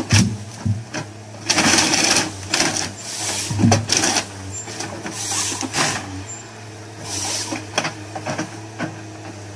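Forestry harvester working, its engine and hydraulics humming steadily while the harvester head's chainsaw cuts through a log in repeated rasping bursts, with sharp cracks in between.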